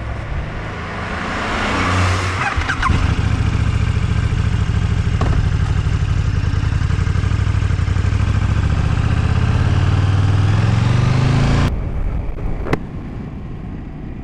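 Motorcycle engine pulling away and running under way, with wind rushing over the camera; the revs creep up before the sound drops suddenly to a quieter engine and wind near the end. A single sharp click follows shortly after.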